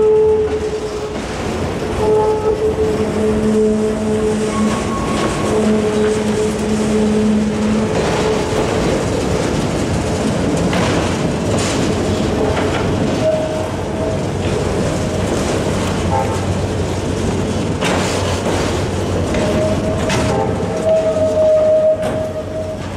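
Freight train of autorack cars rolling past, with the steady rumble and clatter of wheels on rail, a few clanks, and thin whining tones that come and go.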